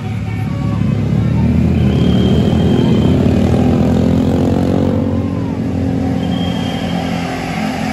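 Tour bus engine passing close, rising in loudness for the first few seconds and then easing off, with a short high whistling tone twice.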